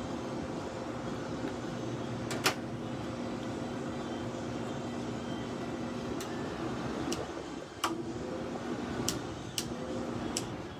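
Haier 5,200 BTU window air conditioner's fan motor running on low: a steady hum with a low tone that drops out briefly near the end, and a sharp tick every second or so, irregularly spaced. It is the noise the owner questions in the fan motor, which he says does not happen on high.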